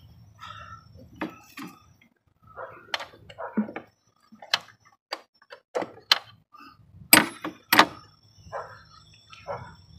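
Hand tools clicking and clinking against metal as 12 mm bolts on a diesel fuel filter head are worked loose, about eight sharp clicks at uneven intervals, the loudest pair about three-quarters of the way through.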